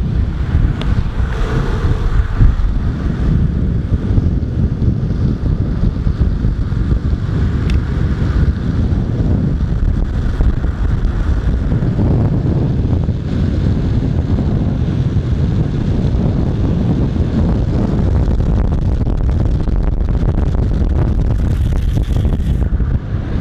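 Loud, steady wind buffeting the microphone, a low rushing roar with no pauses.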